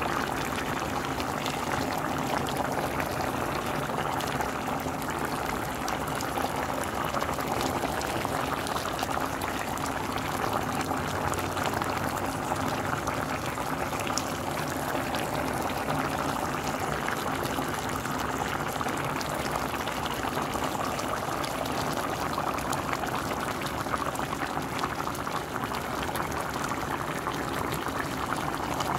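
A pot of green beans, potatoes and ham hock in broth bubbling at a steady boil, with small pops of bubbles breaking at the surface.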